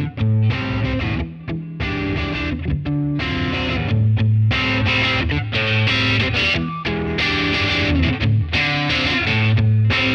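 Electric guitar played through a J Rockett "The Dude" overdrive pedal, a Dumble Overdrive Special-style overdrive. Overdriven chords and phrases ring out, with brief pauses between them.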